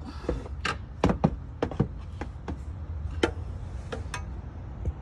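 About a dozen sharp metallic clicks and knocks, loudest about a second in, from large pliers being handled and clamped on a stuck crankshaft position sensor to twist it out of the engine block.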